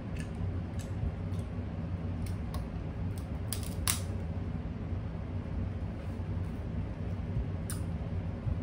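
Crab leg shells cracking and snapping while being picked apart and bitten: a scatter of sharp clicks and crackles, loudest about three and a half to four seconds in, over a steady low hum.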